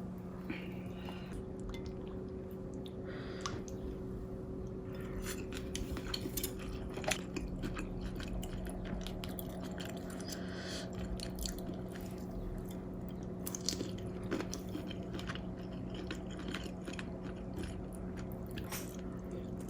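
Close-up chewing and eating, with many small clicks and knocks that sound like dishes or utensils, over a steady low hum.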